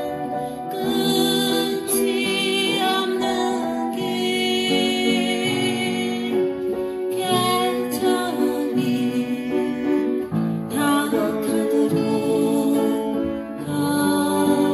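Upright piano played by ear: a slow song melody over held chords, with a singing voice heard along with it.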